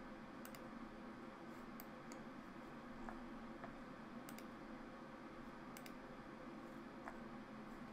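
Computer mouse clicking, a handful of sharp, scattered clicks, over a faint steady room hum.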